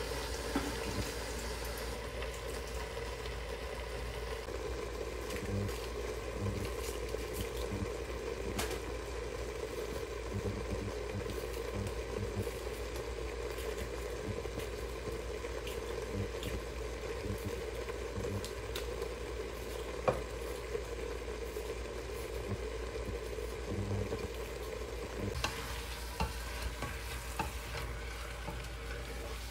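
Chopped onions and meat sizzling as they fry in a steel pot, stirred now and then with a wooden spoon. The steady sizzle carries a few light clicks, the sharpest about two-thirds of the way through.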